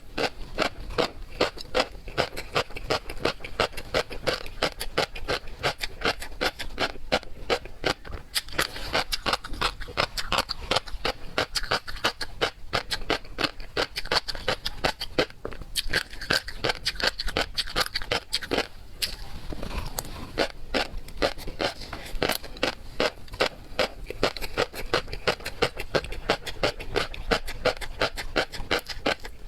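Close-miked mouth sounds of eating seafood: wet chewing and lip-smacking in a steady run of sharp clicks, about four or five a second.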